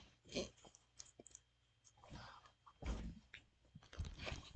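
A person chewing food close to the microphone, with scattered soft mouth and handling noises. A sharp bump near the end as the camera is jostled.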